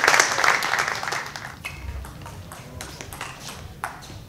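Applause from a small crowd fading out over the first second or so, followed by a few sharp, ringing clicks of a celluloid table tennis ball on the table and bats, the loudest near the end.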